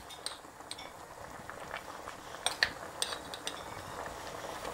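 Pot of chicken stock and vegetables simmering: a quiet steady bubbling with scattered small pops and clicks.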